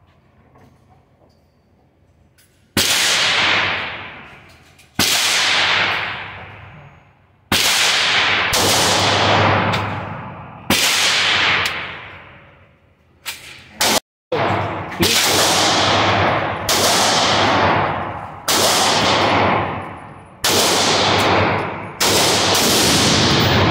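Glock 17 9mm pistol with a muzzle compensator being fired one shot at a time, about a dozen shots spaced a second or two apart. Each shot is followed by a long echoing decay in the indoor range.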